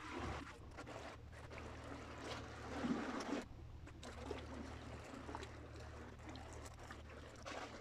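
Sea water lapping and sloshing against the breakwater, swelling to a louder wash about three seconds in, over a steady low hum.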